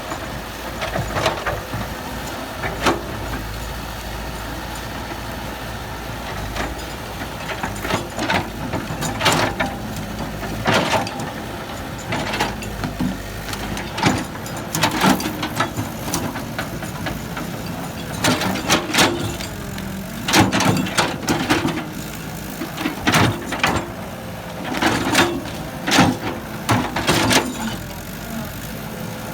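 Heavy diesel earthmoving machinery running steadily, with repeated sharp clanks and knocks that come in clusters, mostly in the second half. A deep rumble underneath fades out about ten seconds in.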